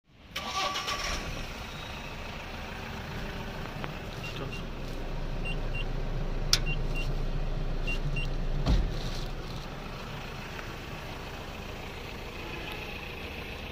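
Mahindra Bolero pickup's diesel engine running steadily at idle. A sharp click comes about six and a half seconds in and a heavier thump near nine seconds, with a few faint short beeps in pairs before them.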